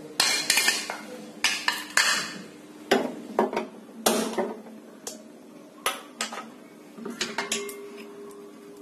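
Metal clattering: a run of sharp clinks and knocks at uneven intervals as metal parts and tools are handled on a gas stove's steel grate, the loudest in the first few seconds.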